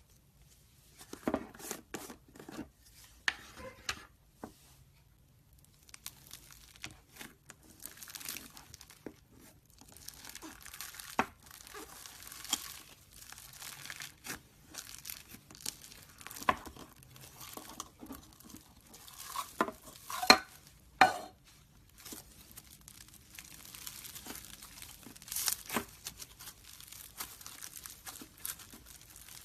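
Homemade slime being mixed and worked by hand, giving an irregular sticky crackling with scattered sharp clicks and pops.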